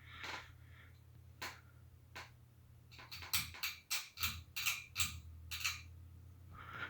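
SMC Park Avenue 42-inch ceiling fan running with a low steady hum. Two single sharp ticks come in the first couple of seconds, then a quick irregular run of about ten ticks over the next three seconds.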